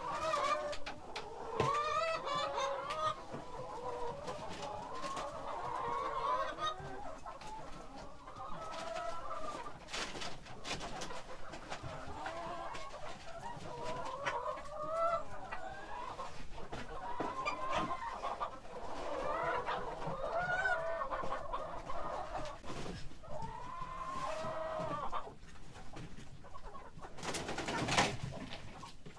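A flock of chickens clucking continuously, with many short overlapping calls, scattered clicks and knocks, and a louder burst of noise near the end.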